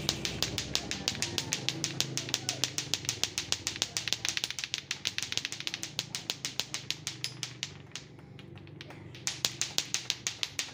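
Latto-latto clacker toy, two plastic balls on a string, knocking together in a fast, even clacking at about six clacks a second. The clacking stops for about a second near the end, then starts again.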